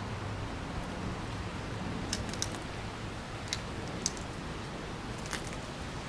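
Steady rush of wind and waves, with about five short, sharp high clicks between about two and five and a half seconds in.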